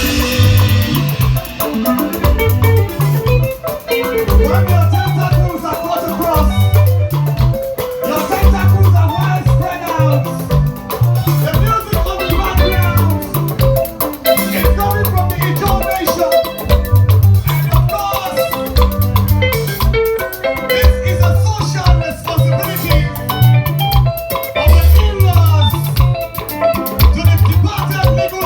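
Upbeat dance-band music with a steady, driving bass line and busy shaker-like rattling percussion.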